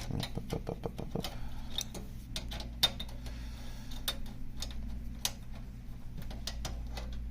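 Screwdriver undoing the screws of a PC case cover: irregular small clicks and ticks of metal on metal, with one sharper click near the middle, over a steady low hum.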